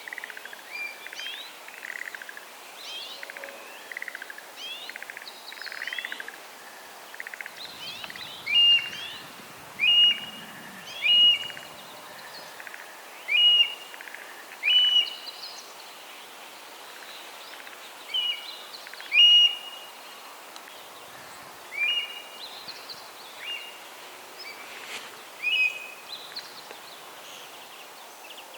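Eastern buzzards, a male and female pair, calling during courtship. A run of softer, quicker calls comes first, then about ten loud, short high calls a second or more apart.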